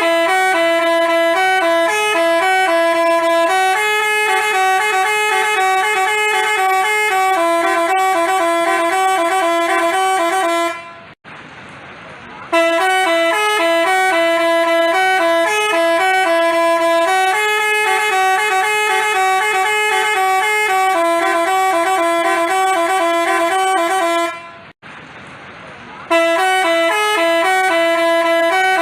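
Telolet basuri multi-tone bus horn playing a stepped melody of held notes. The same phrase, about eleven seconds long, plays twice and begins a third time, with a short break before each repeat.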